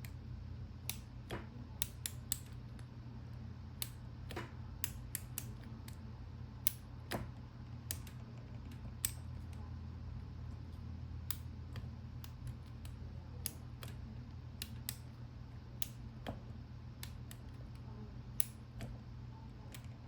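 Irregular sharp clicks from the numbered dial wheels of a Master combination lock as they are turned one position at a time under shackle tension, while decoding the combination by feel. A steady low hum sits under them.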